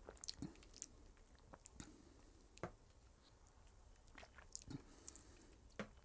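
Faint mouth sounds of a man tasting a cocktail from a coupe glass: sips, swallowing and soft lip smacks, a few small clicks scattered through otherwise near-silent room tone.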